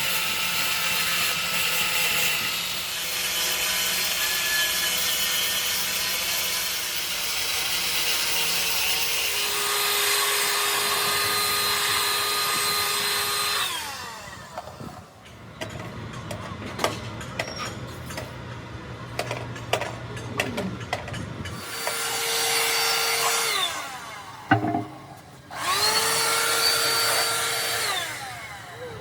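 Electric power tool running under load on the radiator work, stopped about halfway through with its motor spinning down. Scattered knocks and clicks of handling follow, then the tool is run twice more in short bursts, each time spinning up and then down.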